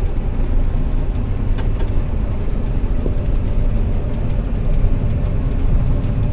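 Combine harvester running steadily at work in a soybean field: a constant low drone of engine and machinery, with a couple of faint clicks.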